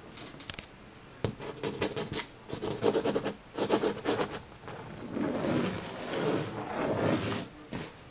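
Irregular scratching and rubbing: a run of short rasps and taps starting about a second in, then a softer stretch of scraping, with a last couple of taps near the end.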